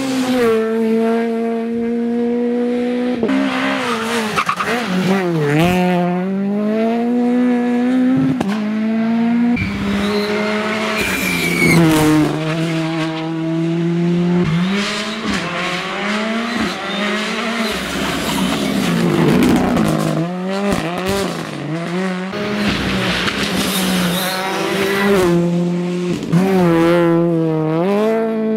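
Rally car engines driven hard on a tarmac stage, revving high then dropping in pitch with gear changes and lifts into the bends, as several cars pass one after another.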